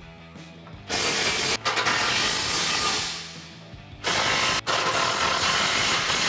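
Cordless impact wrench run in two bursts, about a second in and again about four seconds in, each with a brief break, hammering 18 mm bolts tight through a steel bumper and receiver while a wrench holds the nuts.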